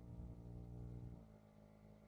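Faint, steady hum of a 12 V Tornado AC+ Pro (AIR140) piston air compressor running as it pumps up a car tyre. About a second in, its tone changes and it gets a little quieter.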